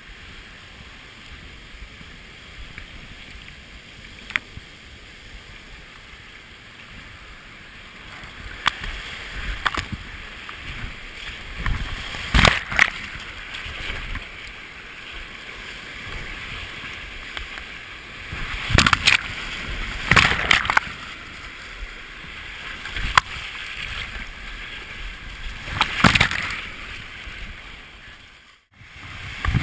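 Rushing whitewater heard from a camera on a kayak's deck as the boat runs a creek's small drops and rapids. Sharp splashes and knocks from paddle strokes and water hitting the boat and camera come through it, with a loud cluster about twelve seconds in and several more in the second half.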